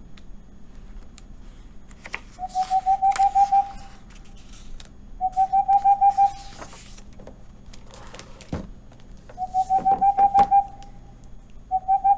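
An owl's call, a steady-pitched trill heard four times, each about a second long, with faint clicks and hiss between the calls.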